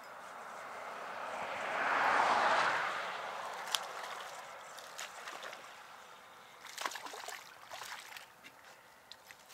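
A rush of noise that swells and fades, loudest about two seconds in. Then a hooked fish splashes at the surface as it is reeled in to the bank, with a cluster of sharp splashes near the end.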